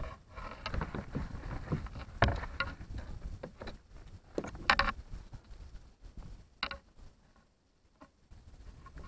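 Irregular clicks, knocks and rustles of a caught bass being handled and unhooked with pliers aboard a plastic kayak.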